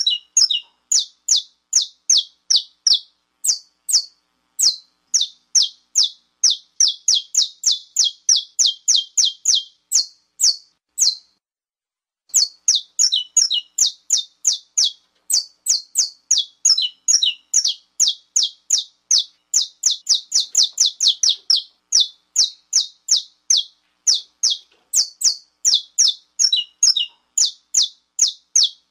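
Saffron finch (canário-da-terra) giving its 'estalo' call: a rapid run of short, sharp, high notes, each falling steeply in pitch, about two to four a second. The notes pause briefly once and some come out stuttered. It is the excited call that keepers use to stir up male saffron finches.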